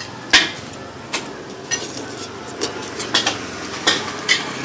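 Metal utensils clinking and scraping against dishes in a series of irregular sharp clinks, the loudest about a third of a second in, over a steady background hum.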